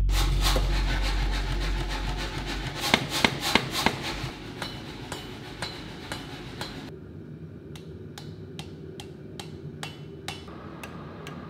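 Blacksmith's hand hammer striking hot steel on an anvil: a quick flurry of blows in the first half, then a steady run of about two ringing blows a second. The tail of background music fades out in the first couple of seconds.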